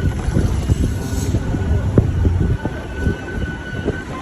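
Inside a moving passenger bus: steady low engine and road rumble with the body rattling and knocking, one sharper knock about two seconds in.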